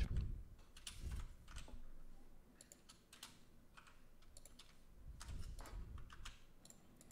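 Faint typing on a computer keyboard: irregular keystrokes as a line of code is edited.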